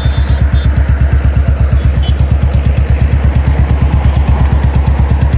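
Royal Enfield Bullet 350's single-cylinder engine running at a steady speed, a loud even low thump of about nine to ten beats a second.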